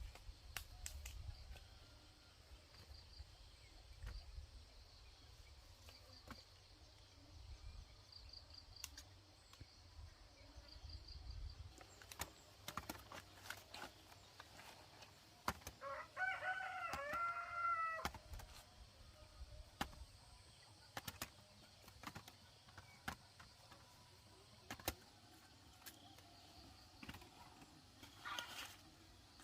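A rooster crows once, about halfway through, in one drawn-out call lasting about two seconds. Scattered clicks and knocks run throughout, with faint high chirps in the background.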